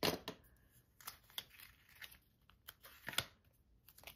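Hands handling and pulling apart a cardboard photocard wrapping held with washi tape: scattered small clicks and rustles of cardboard and tape, with two louder, short rasps, one right at the start and one about three seconds in.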